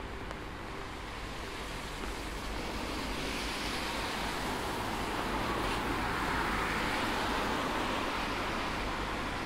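Wet city street in the rain: a steady hiss and low hum, with the hiss of tyres on wet road swelling from about two seconds in and fading slightly near the end as a car passes.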